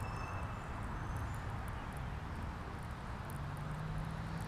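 Outdoor ambience with a steady low rumble and a few faint high chirps near the start. A steady low engine hum comes in about three seconds in and grows louder.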